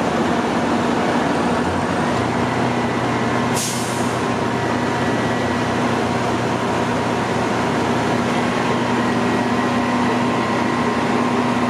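Fire trucks' diesel engines running steadily with a constant low hum, growing a little stronger about two seconds in. A short sharp hiss of air cuts through about three and a half seconds in.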